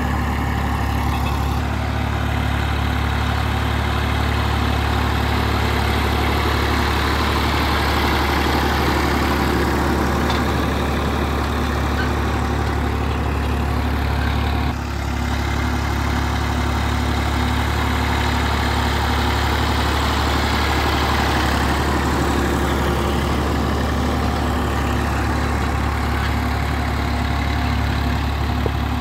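Massey Ferguson 240 tractor's three-cylinder diesel engine running at a steady, even pace while pulling a field implement and log drag through loose soil.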